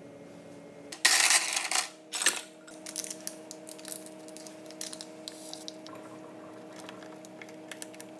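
Light clinks and taps on a glass mug as something is dropped into the water and stirred with a wooden stick, over a steady low hum. About a second in there is a short, loud rushing noise, then a second, briefer one.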